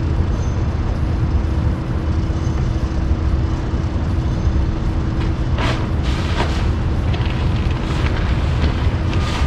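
A steady low rumble with a faint hum under it; a little past halfway, protective plastic wrapping starts crinkling and rustling as it is handled and pulled open.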